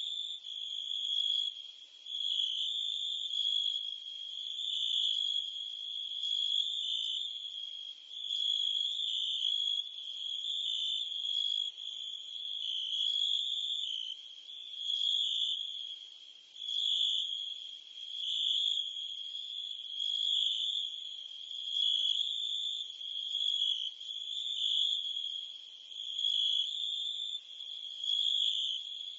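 A chorus of crickets and cicadas giving a steady, high-pitched trill that swells and fades about every two seconds.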